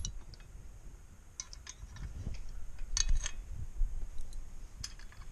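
Light metal clicks and clinks from a Gorilla steel utility cart's pull handle being moved by hand, a few separate clicks about a second and a half in, around three seconds and near five seconds.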